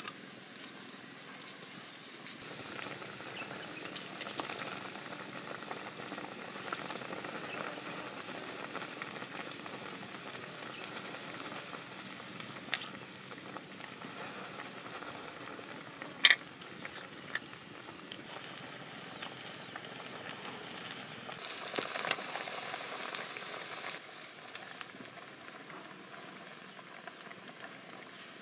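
Chicken broth boiling in a large aluminium wok over a wood fire: a steady bubbling hiss, with a few sharp clicks, the loudest about 16 seconds in, and a louder, busier stretch a little past 20 seconds.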